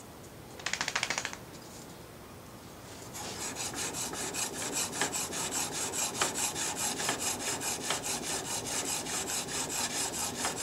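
A short burst of fast clicks as the sharpening jig's angle-adjustment knob is turned to lower the bevel angle slightly. About three seconds in, a steel blade held in the jig starts being stroked back and forth on a diamond sharpening plate: a steady, rapidly repeating rasping rub.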